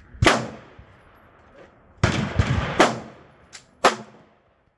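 Handgun shots at a shooting range: four loud, sharp shots with echoing tails, about a quarter second, two, three and four seconds in, and a fainter shot just before the last.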